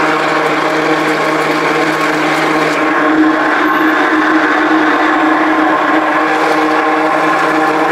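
Handheld immersion blender running steadily with a constant motor whine, its blade churning a liquid shake mix in a tall container.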